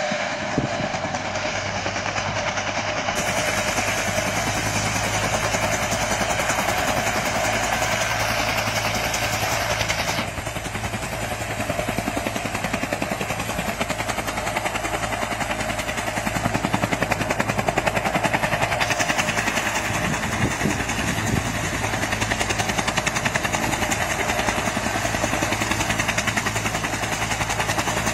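AH-1S Cobra attack helicopter running on the ground, its turboshaft engine whining under the rapid, even beat of the two-blade main rotor. The tone of the noise shifts abruptly about ten seconds in and again near twenty seconds.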